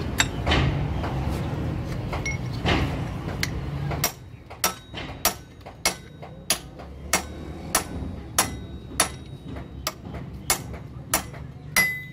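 Hammer blows driving a gear onto the shaft of a Hino truck gearbox during assembly: metal-on-metal strikes with a short ringing after each. From about four seconds in they come evenly, roughly one and a half a second; before that there is a busier, noisier stretch of workshop clatter.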